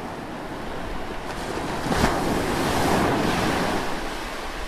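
Logo-intro sound effect: a rushing noise that swells, with a sharp hit about two seconds in, then slowly dies away.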